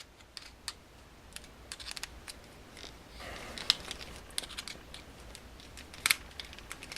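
Light clicks and small clatter of plastic and metal RC parts and a hand tool being handled while the steering knuckles are worked off an RC truck axle, with a short rustle in the middle and a sharper click about six seconds in.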